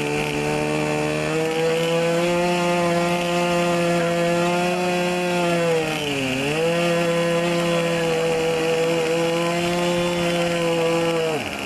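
Engine of a large RC scale model aircraft running up at high throttle with a steady, buzzing pitch. The pitch dips briefly and recovers about six seconds in, then the engine is throttled back to idle near the end.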